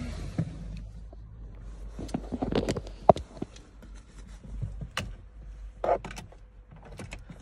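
Scattered clicks and knocks, with some rustling, from handling and movement inside a van's cab, the sharpest near the middle.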